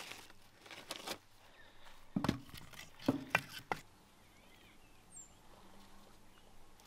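A few sharp clicks from a long-nosed gas lighter being triggered to light firewood, the loudest a little past two seconds in and three quick ones around three seconds in, followed by quiet outdoor background.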